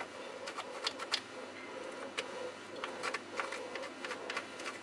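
Irregular light clicks and taps from hands positioning a cut-off piece of skateboard deck and a pencil against the deck, over a steady hum.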